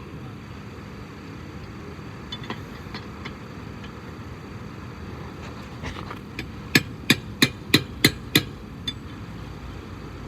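A quick run of six sharp metal taps, about three a second, nearly seven seconds in, after a few faint clicks. This is the wheel-lock key socket being tapped onto a locking lug nut so it seats deep and doesn't strip.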